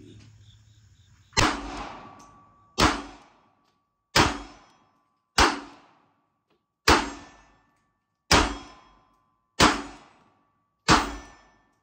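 Glock 42 .380 ACP pistol firing eight single shots at a slow, even pace, about one every 1.4 seconds. Each shot is followed by a short ringing decay.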